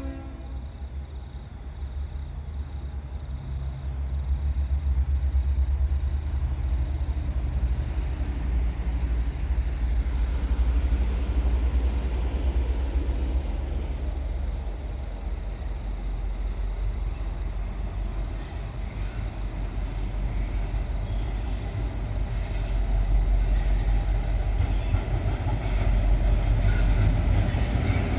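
V/Line N class diesel locomotive hauling a train past with a steady low rumble that swells, eases off midway and swells again.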